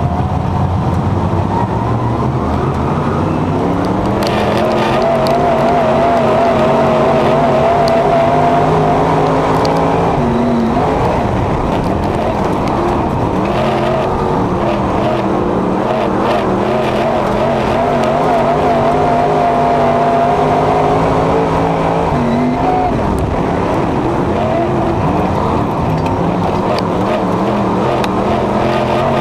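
Dirt-track race car engine heard from inside the cockpit under racing throttle, its pitch climbing as it accelerates, holding high, and dipping briefly twice, about ten and twenty-two seconds in, before climbing again.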